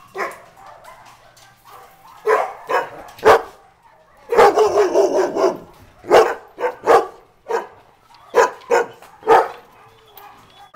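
Shelter dogs barking repeatedly from their kennels, a dozen or so short separate barks with a dense run of overlapping barking about four seconds in.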